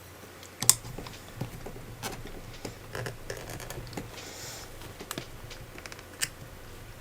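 Irregular clicks, light knocks and scrapes of hard resin ball-jointed doll parts and pliers being handled as the head is fitted onto the doll's body, with a sharp click about a second in and another near the end.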